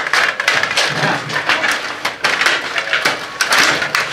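Stiga table hockey game in play: a rapid, uneven clatter of clicks and knocks from the plastic players, control rods and puck against the plastic rink.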